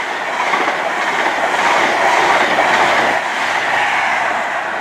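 InterCity 125 High Speed Train's Mark 3 coaches passing at speed close by: a loud, steady rush of wheels on rails and air.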